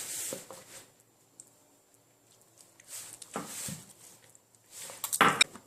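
Hands pressing crumbly shortcrust dough together, without kneading: soft rubbing and squishing in a few short spells, with several sharp clicks near the end.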